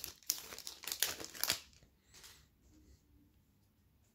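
Foil wrapper of a Topps Pro Debut baseball card pack crinkling and crackling as it is handled and the cards are pulled out, for about the first second and a half, then fading to faint rustles.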